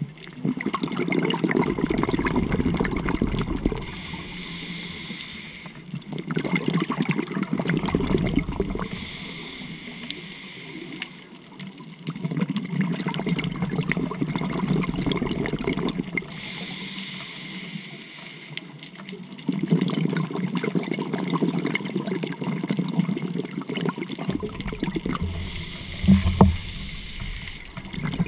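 Scuba diver breathing through a regulator underwater: a short hissing inhale, then a longer bubbling exhale, repeating about every six to seven seconds.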